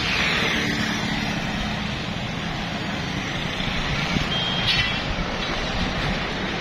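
Steady road noise of passing motor traffic, with wind rushing on the microphone.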